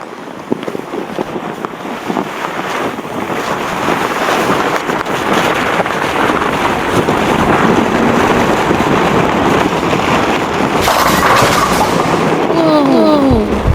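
Rushing wind sound effect that swells over the first few seconds and then holds steady, with a few short falling pitched cries near the end.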